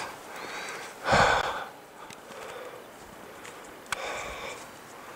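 A hiker breathing hard while climbing a steep snow slope: several noisy breaths, the strongest about a second in, with a sharp click about four seconds in.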